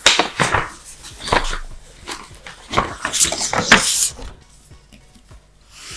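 Printed paper sheets rustling and crinkling as they are handled, in several loud bursts over the first four seconds, then fading.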